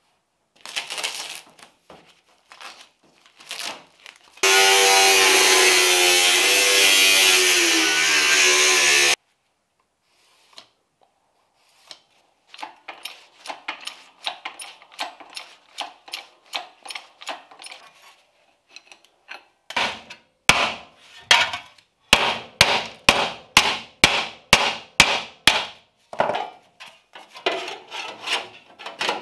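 Sheet-metal fabrication on a steel patch panel: a few scratches and taps, then a power tool runs for about five seconds and stops abruptly. After a short pause comes a long run of rhythmic rasping strokes that grow heavier in the last third, about three strokes a second.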